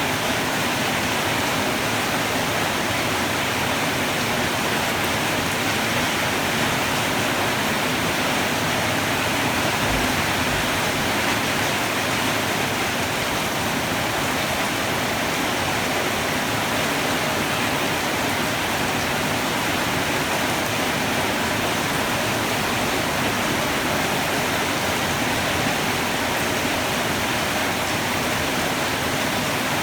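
Heavy tropical rain pouring steadily, a dense even hiss of falling water that holds at one level throughout, with no thunder.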